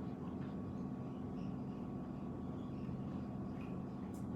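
Quiet room tone: a steady low hum with a faint thin higher tone and no distinct events.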